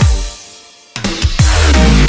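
Electronic dance music. A falling sweep drops almost to silence, then heavy bass and beat come back in about a second in: a build and drop.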